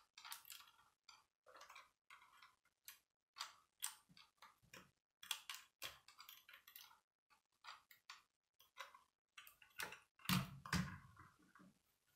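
Faint small clicks and rattles of a plastic Lego helicopter model being handled and turned in the hands, then a louder knock about ten seconds in as it is set down on a wooden table.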